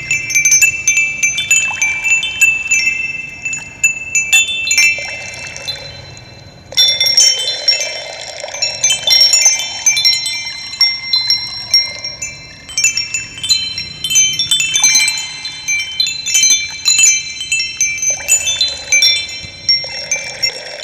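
Wind chimes tinkling, many clear high notes struck at random and ringing on, with a short lull about a third of the way in. A soft sound of flowing water runs beneath in places.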